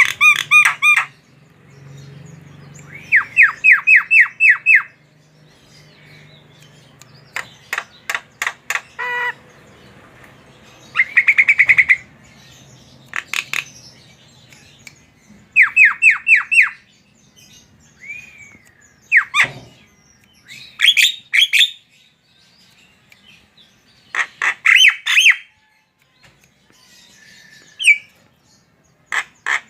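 Javan myna singing: short loud phrases every few seconds, each a rapid run of repeated whistled notes, mixed with harsh clicking calls and an occasional sliding note.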